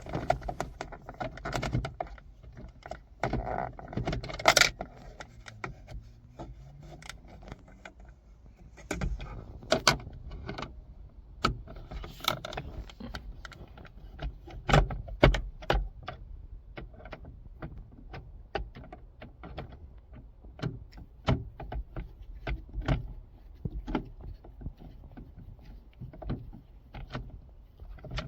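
Irregular small clicks, clinks and knocks of a screwdriver working two screws out of a car's overhead light unit, with the handling of small metal and plastic parts.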